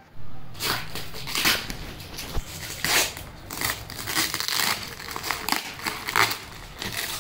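Scissors cutting and picking at the plastic packing tape on a cardboard parcel, the tape crinkling and tearing in irregular scratchy strokes.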